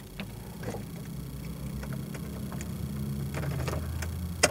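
Daihatsu Mira's 660 cc three-cylinder engine running at idle just after a key start, heard from inside the cabin; its steady hum settles lower about three seconds in. A few light clicks sound over it.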